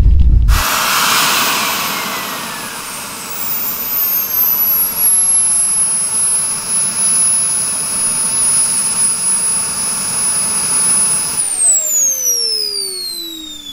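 Small model jet turbine engine running: its high whine climbs at the start, eases to a steady pitch, and winds down with a falling whine about eleven seconds in.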